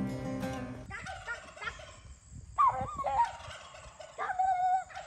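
Acoustic guitar music fades out about a second in, then a turkey gobbles three times in wavering calls, the middle one the loudest.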